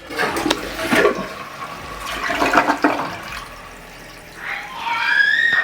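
Newly installed toilet flushing on its first test: a rush of water emptying from the tank through the bowl, with a short rising high tone near the end.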